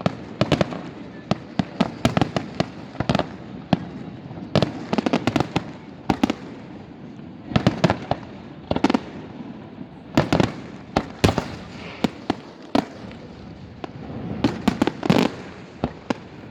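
Fireworks display: a long string of sharp bangs and pops, some single and some in quick clusters, over a steady background rumble.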